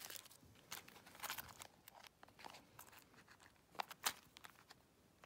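Faint crinkling and rustling of a plastic bubble-wrap pouch being handled and opened, with two sharper clicks close together about four seconds in.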